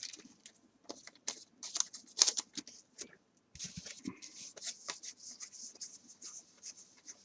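Baseball trading cards handled and flipped one by one, sliding against each other: a string of light irregular clicks and soft rustling swishes.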